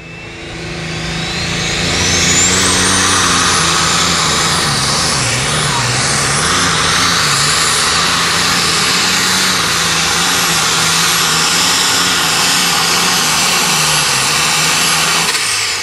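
Allis-Chalmers light super stock pulling tractor making a full-throttle pull down the track: the engine builds over the first two seconds as a high turbo whistle climbs steeply, then holds steady and loud, and falls away near the end as the run finishes.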